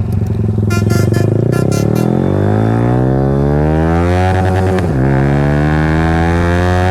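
Yamaha R15's single-cylinder engine through an Akrapovic exhaust, accelerating with its pitch rising steadily for about four seconds. It dips briefly at a gear change about five seconds in, then holds a steady pitch. A few short high beeps sound in the first two seconds.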